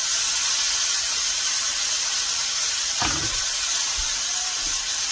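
Ribeye steaks and butter sizzling in a hot cast iron skillet: a steady high hiss, with a soft knock about three seconds in.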